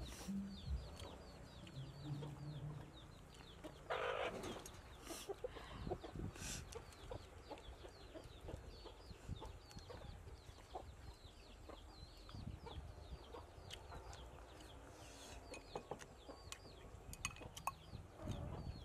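Chickens clucking, with one louder call about four seconds in, over a fast high chirping that runs throughout. Light clicks of chopsticks on a porcelain bowl come and go.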